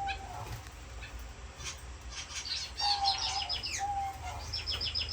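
Owl finches calling in their cages: a few drawn-out calls and quick runs of high chirps, busiest in the second half.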